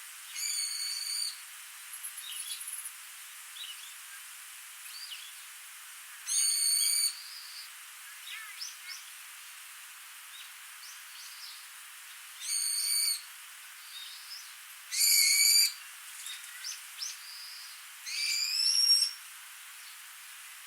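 A bird calling loudly five times, each call under a second, with fainter chirps from other birds between, over the steady hiss of a small stream.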